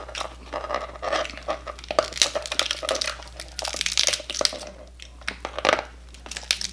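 Cooked Dungeness crab being pulled apart by hand: the shell cracks and crunches and the meat and leg joints tear, in an irregular run of snaps and crackles.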